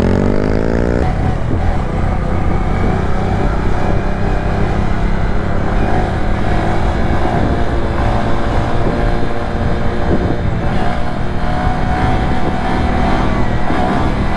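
Honda Grom motorcycle's 125 cc single-cylinder engine running under way, revs climbing in the first second, then holding fairly steady.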